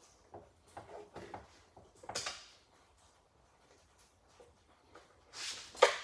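Scattered light clicks, knocks and scrapes of hand work at a wooden workbench, with a brief scrape about two seconds in and a louder scrape ending in a sharp knock near the end.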